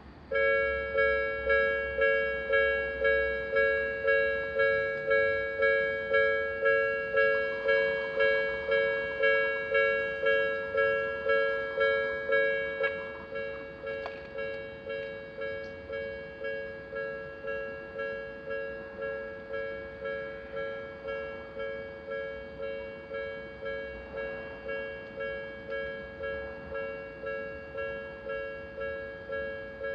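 Japanese railroad crossing's electronic warning bell ringing, a two-tone ding struck about one and a half times a second, which signals that a train is approaching. It switches on suddenly, and about 13 seconds in it drops to a noticeably quieter level and keeps ringing.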